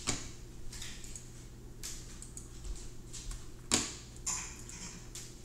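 A few separate clicks of computer keyboard keys, the sharpest a little under four seconds in, over a faint steady low hum.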